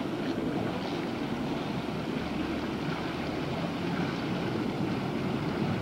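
Steady rushing and splashing of water from a backyard spa's fountain jets spilling into the swimming pool.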